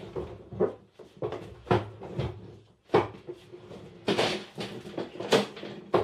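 Irregular knocks and clunks, some with a short ring, as an old painted table is handled and carried about.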